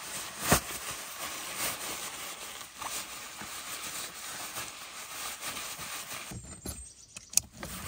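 Steady hiss of rain falling, with a sharp click about half a second in. The hiss drops away abruptly about six seconds in, leaving a couple of faint clicks.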